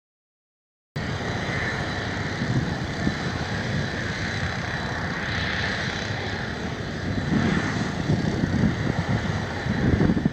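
Ferry Isle of Innisfree's engines droning steadily as the ship departs harbour, with an uneven low rumble underneath. The sound cuts in abruptly about a second in.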